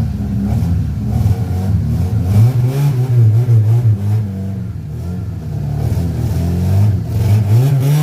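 A motor vehicle's engine running and revving, its pitch wavering up and down and then rising near the end.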